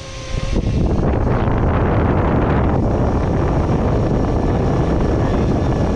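Strong exhaust air from a freshly cleared dryer vent rushing steadily over the microphone, starting about half a second in, with a faint steady whine underneath: the sign of restored airflow once the lint blockage is gone.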